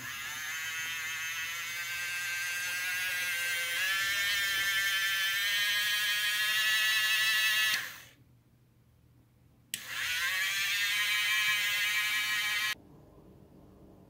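Toy washing machine's small electric motor running with a high whine and many overtones, its pitch climbing and then shifting as it labours: at low voltage it cannot give enough torque, and its sound changes under the strain. It winds down about eight seconds in, then restarts with a click about two seconds later and cuts off suddenly near the end.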